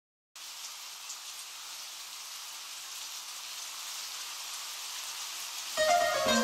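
Steady rain hiss, slowly growing louder. Near the end, music enters with sustained ringing notes.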